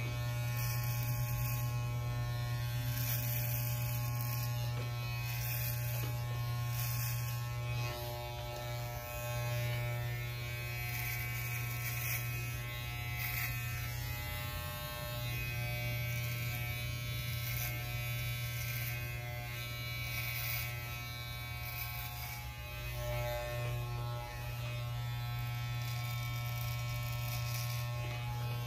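Corded electric hair clippers buzzing steadily as they run over a closely shaved scalp, evening the hair to one length. The buzz dips briefly a few times.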